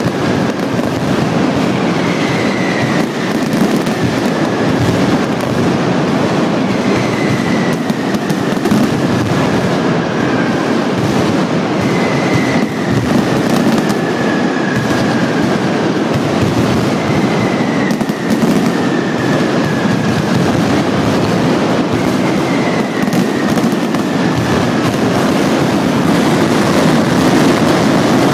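A mascletà's ground-level firecracker barrage going off so densely that it merges into one continuous crackling roar, growing louder near the end. A faint falling whistle sounds about every five seconds over it.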